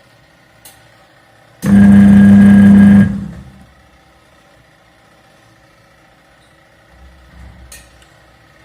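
An electric motor switches on suddenly, runs with a steady hum for about a second and a half, then cuts out and winds down. A faint click comes about a second before it starts.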